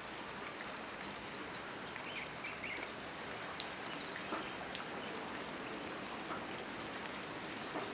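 Birds chirping in short, high, down-slurred notes, one every second or so, over a steady outdoor hiss.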